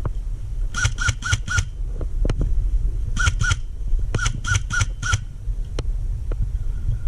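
A bird calling in quick runs of short squawks, four, then two, then four, about three to four a second. Underneath are a steady low rumble of wind on the microphone and a few sharp clicks.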